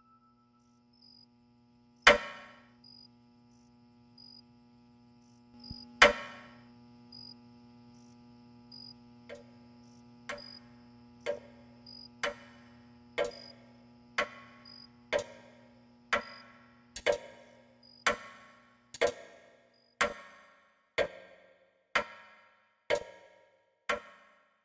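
Two loud, ringing strikes, then a clock ticking about once a second, the ticks growing louder and each ringing briefly, over a low steady hum.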